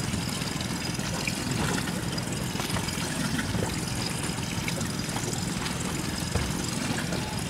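Water lapping and sloshing against a small boat's hull, over a steady low rumble.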